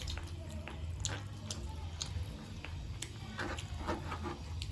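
Close-up chewing of a mouthful of pork meal: wet mouth sounds with scattered sharp clicks of lips and teeth, over a low steady hum.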